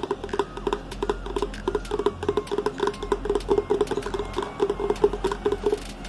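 Fingers tapping rapidly on a small plastic bottle, about five hollow taps a second.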